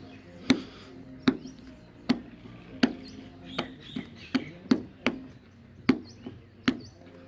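Plastic scraper scraping dent-puller glue off a car body panel, the glue loosened with isopropyl alcohol. Each stroke gives a short, sharp click, about a dozen of them at an uneven pace of roughly one every half second to second.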